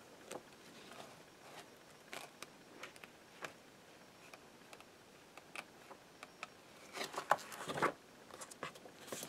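Paper pages of an old ring-bound book being turned by hand: soft scattered rustles and ticks, with a louder flurry of page-turning about seven to eight seconds in.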